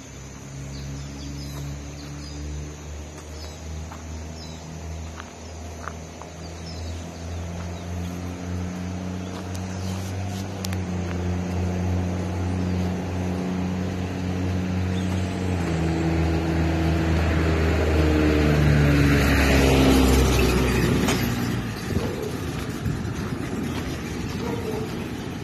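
Motor vehicle driving along a dirt road: its engine runs with the pitch shifting up and down as it goes, growing louder toward about three-quarters of the way through, where a rush of road and wind noise peaks and then eases off.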